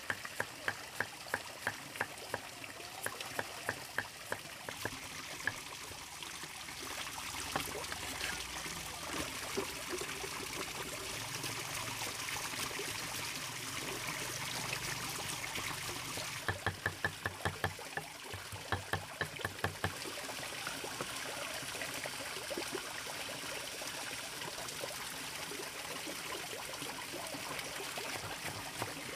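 Steady trickling water, with runs of quick, regular clicks or taps, about three a second, in the first few seconds and again about two-thirds of the way through.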